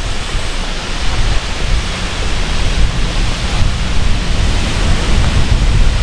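A waterfall's rushing water: a loud, steady wash of noise with no break.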